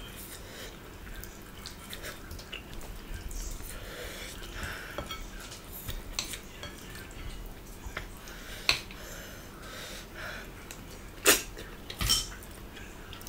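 Eating by hand from ceramic bowls: fingers mixing rice and picking at pork and snails, with scattered small clicks and clinks against the dishes and a few sharper clinks near the end.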